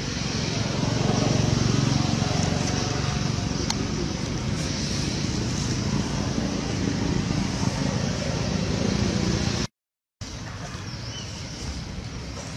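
Steady outdoor background noise with a low rumble, loudest in the first couple of seconds. It breaks off in a half-second dropout about ten seconds in, then carries on.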